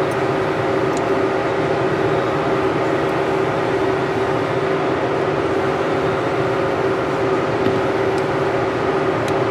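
Steady mechanical hum of a fan or air-conditioning unit, with an even droning tone, and a few faint light clicks of small pistol parts being worked.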